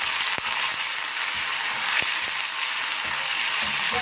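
Curry leaves, ginger and garlic sizzling and spluttering in hot oil in an iron kadai, stirred with a steel ladle, with a few sharp clicks of the ladle against the pan.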